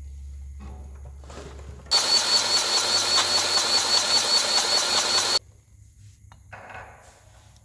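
A loud motor-driven machine starts abruptly about two seconds in. It runs with a high whine and a fast pulsing of about six beats a second, then cuts off suddenly after about three and a half seconds.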